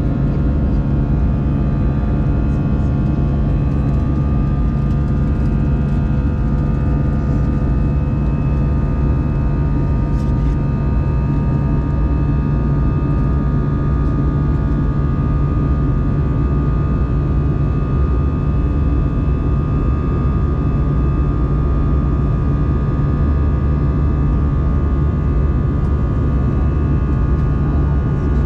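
Airbus A320 jet engines and airflow heard inside the cabin during the climb after takeoff: a loud, steady drone with several steady whining tones above it.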